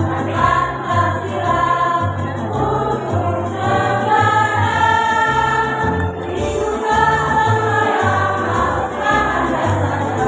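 Women's choir singing in parts, with a backing accompaniment playing a bass line underneath.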